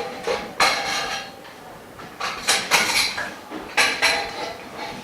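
Frame bars and fittings of a dust-free room's frame knocking and clinking as they are handled and fitted together: about seven irregular sharp knocks with a short ring after each.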